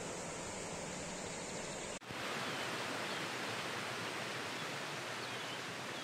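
Steady rushing of a distant waterfall. About two seconds in the sound cuts sharply to a brighter, hissier rush with a few faint high chirps.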